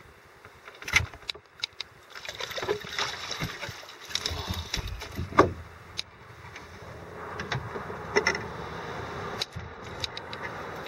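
Water splashing and sharp knocks against a small boat's hull as a hooked trout is brought alongside and landed by hand. The loudest knocks come about a second in and about halfway through.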